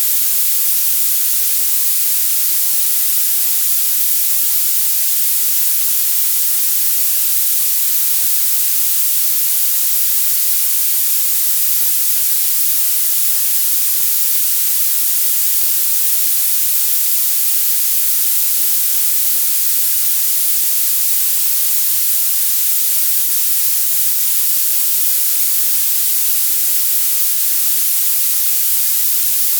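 Violet noise: steady synthetic hiss, its energy rising toward the highest pitches, very bright and thin with almost no low end.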